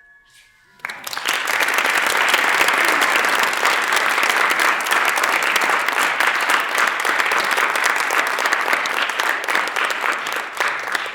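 A clarinet trio's last quiet notes die away, and about a second in an audience starts applauding, the clapping continuing steadily and tapering slightly near the end.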